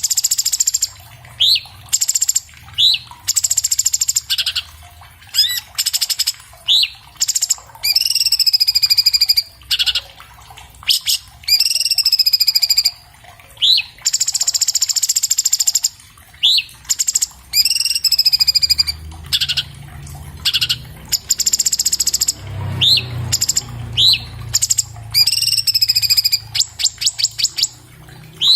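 A cucak cungkok leafbird singing a fast, varied song. Harsh rasping bursts alternate with quick rising whistles and longer slurred, falling whistled phrases, and near the end comes a rapid stutter of clicks.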